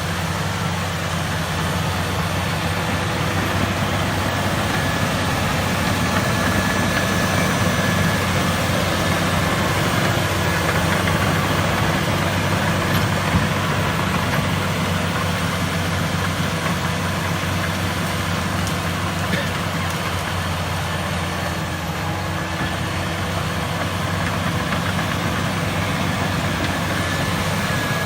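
Komatsu D85ESS bulldozer's diesel engine running steadily at a constant speed.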